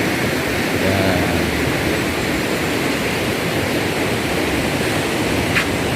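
Steady rush of flowing river water, a full even noise, with one short click near the end.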